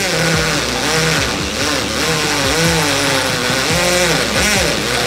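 Total 12V cordless impact drill running in impact (hammer) mode, boring into a concrete wall. Its pitch dips and rises repeatedly as the load changes.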